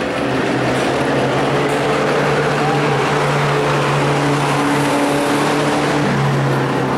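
Race pickup truck's engine running at a fairly steady pitch as the truck laps the track, the note shifting slightly near the end.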